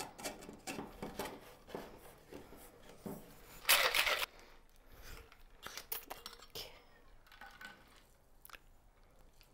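Stainless-steel cocktail shaker being closed up with a few light metal clicks, then a short loud burst of rattling as the drink is shaken about three and a half seconds in, followed by a few softer clinks.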